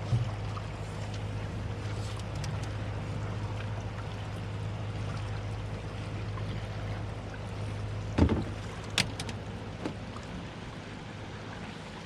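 A small catfish being unhooked on a boat deck, over a steady low hum: a couple of sharp knocks about eight and nine seconds in as the fish and hook are handled against the deck.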